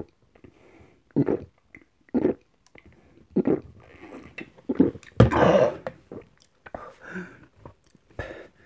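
Loud gulps of fizzy Fanta being chugged, about one a second, then a longer, louder burst about five seconds in, followed by smaller mouth and throat sounds.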